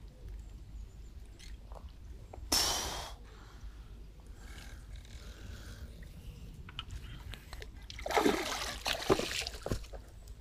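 Pond water splashing and trickling as a clump of weed is pulled out of the water, with a sharp splash about two and a half seconds in and a longer bout of splashing and dripping about eight seconds in.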